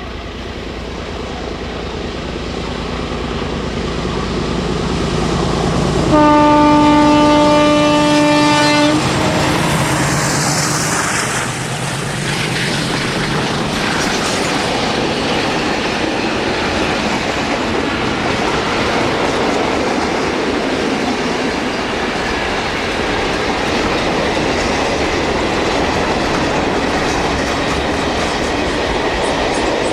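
Freight train approaching and growing louder, its locomotive sounding one long horn blast about six seconds in. Then the wagons roll past with a steady clickety-clack of wheels on the rails.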